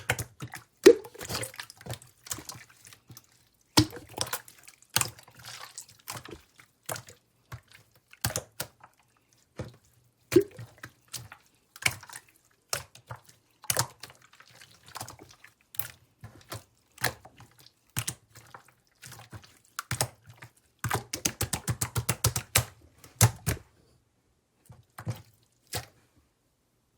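Slime being squeezed, poked and stretched by hand, making wet, sticky clicks and pops at an uneven pace, with a rapid flurry of clicks a little past twenty seconds in.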